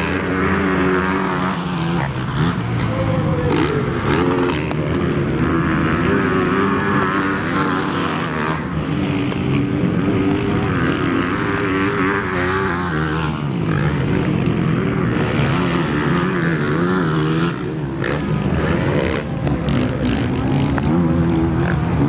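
Motocross race bikes revving hard as several riders accelerate past, their engine pitch rising and falling with the throttle, over the steady running of other bikes around the track.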